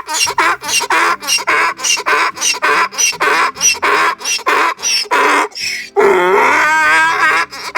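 Donkey braying loudly: a fast run of hee-haw cycles, about two a second, with one longer, wavering note about six seconds in before the rapid cycles resume.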